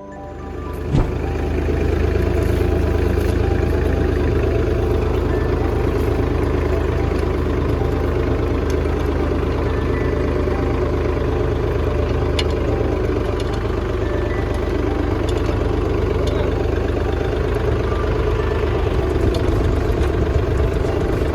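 Tractor engine running steadily under load, pulling a potato harvesting machine, with a single sharp knock about a second in.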